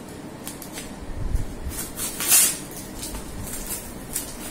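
Scissors cutting and hands tearing at the brown paper wrapping of a mailed book parcel: scattered snips and crinkling, low handling thuds about a second in, and one loud short rip a little past two seconds in.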